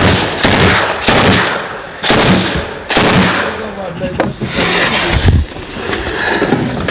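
Gunfire in combat: a string of single shots, roughly one a second, each trailing off in echo.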